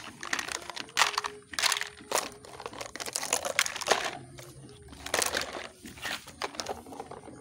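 Hard plastic toy vehicles being dropped and pushed into a plastic lattice basket: a run of irregular clacks and rattles of plastic on plastic.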